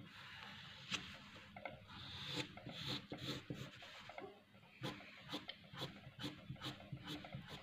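Pencil scratching on paper as hair is shaded in. At first come longer rubbing strokes, then from about five seconds in short quick hatching strokes, about three a second.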